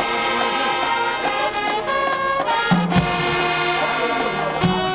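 Marching band brass section playing held chords that step from note to note, with a heavier low entrance about three seconds in.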